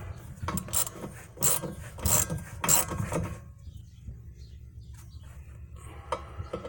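Hand ratchet wrench clicking through a series of short strokes as a tight, corroded bolt is backed out of the rear air shock's mount. The strokes come about every half second for the first half, then go quiet, with a few faint ticks near the end.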